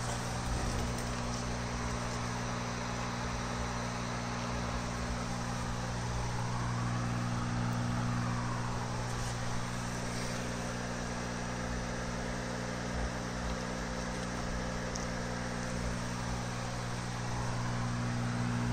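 Steady low mechanical hum of a running machine, unchanging throughout, with no distinct tool or parts noises standing out.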